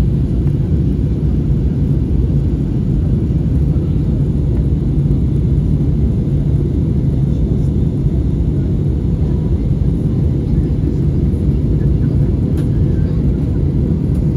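Steady low rumble of jet engines and rushing air heard inside an airliner's cabin as it climbs after takeoff.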